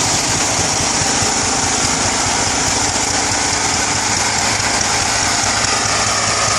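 Vehicle-mounted mosquito fogging machine running steadily: its small engine runs with a fast pulse under a strong, even hiss from the spray blast.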